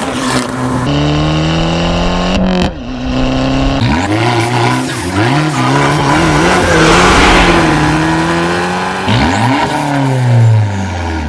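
Car engine revving hard, its pitch climbing and dropping again and again as it is worked through the revs, then winding down near the end.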